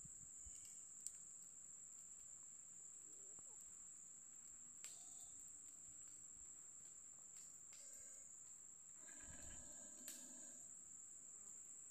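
Faint, steady, high-pitched drone of an insect chorus, running unbroken.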